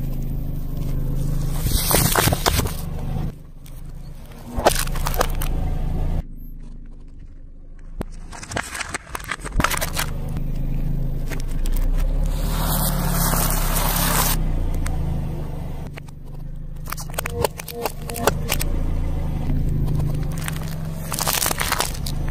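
A car tyre rolling slowly over small objects and crushing them, with crunching, crackling and scraping over the car's low idling engine. Several short takes follow one another, each breaking off abruptly.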